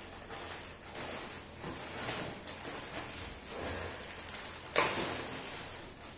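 Clear plastic packing bags rustling and crinkling as they are handled, with one short, sharp, louder noise near the end.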